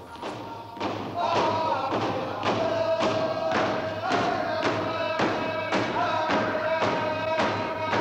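Inupiaq frame drums with walrus-skin heads struck with thin sticks in a steady beat of about two strokes a second, with a group of men singing a chant in unison over the drumming.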